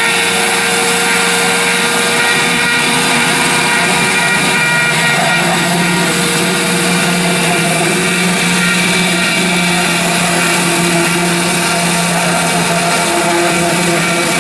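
Homemade CNC machine running: a steady motor whine with several held tones, some of which come and go or shift in pitch.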